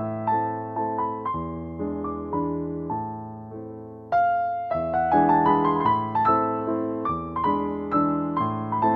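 Background piano music: notes struck one after another and dying away, turning fuller and louder about four seconds in.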